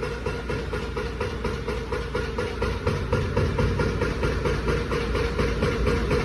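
Excavator's diesel engine running steadily with a rapid, even pulse, getting a little louder about three seconds in.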